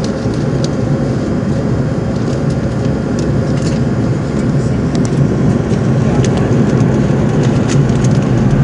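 Steady low rumble of jet engines heard from inside an airliner cabin while it waits to take off, growing slightly louder in the second half.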